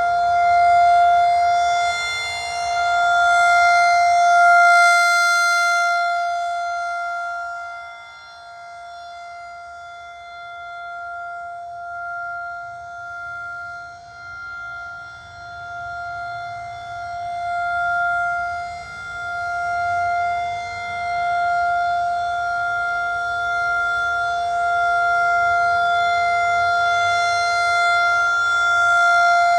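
Federal Signal 2001-SRN rotating electromechanical warning siren sounding a steady alert tone. The pitch holds level while the loudness swells and fades every few seconds as the horn sweeps around, dipping for a stretch in the middle.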